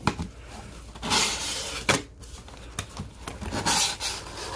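Cardboard box flaps being pulled open and rubbed by hands, with scraping and rustling of the cardboard and the white packing sheet inside, and a few sharp clicks.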